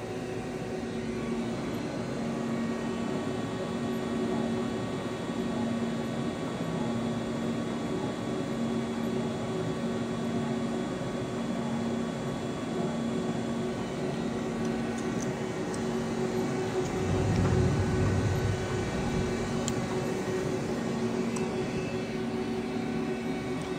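A Sunfirm CHT 5680 oil-field CNC lathe runs its spindle in third gear at 50 RPM, giving a steady machine hum with two held tones. A louder low rumble swells for a second or two about two-thirds of the way through.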